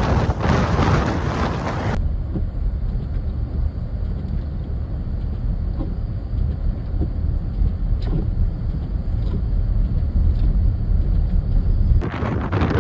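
Strong blizzard wind blowing across and buffeting the microphone as a broad hiss. About two seconds in it changes abruptly to a deep low rumble with the hiss gone, and the broad wind noise returns near the end.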